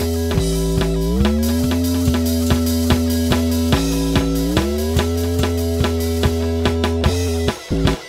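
Improvised instrumental rock jam of guitar, keyboard and drums. Long held notes slide up in pitch twice over a deep steady bass and a regular drum beat, and near the end the held notes drop out into short, choppy stabs.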